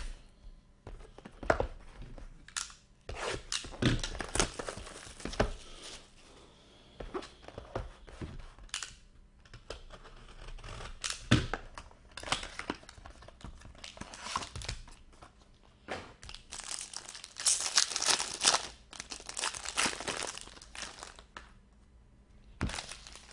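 Hockey card packs being torn open: foil wrappers ripping and crinkling, with the sharp clicks and rustles of cards being handled, coming in uneven bursts that are busiest near the end.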